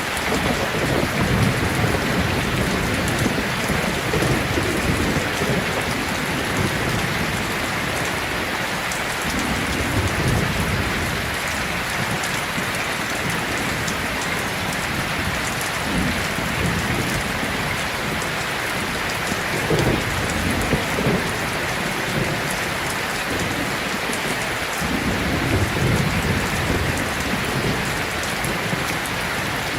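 Heavy rain falling steadily, with low thunder rumbling several times over it.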